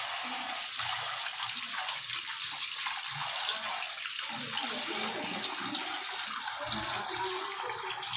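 Tap water running steadily and splashing onto a whole milkfish and into a bowl beneath, while hands rub and rinse the fish under the stream.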